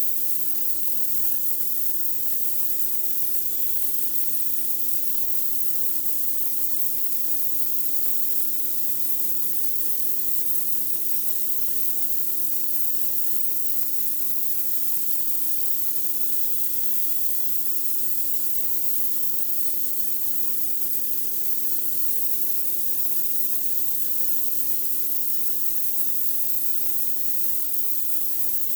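High-pressure water jet from a pressure washer blasting a concrete driveway: a steady, unbroken hiss. The machine's steady hum sits underneath.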